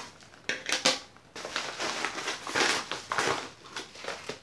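Yellow padded paper mailer being opened and handled: a few sharp crackles a little over half a second in, then several bursts of crinkling and rustling paper.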